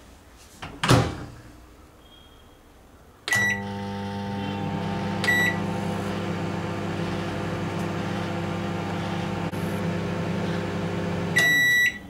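Microwave oven door shut with a thud about a second in; a little later a beep as the oven is started and it runs with a steady hum, dry-roasting peanuts, with a second beep shortly after. Near the end the hum stops and the end-of-cycle beep sounds as the timer reaches zero.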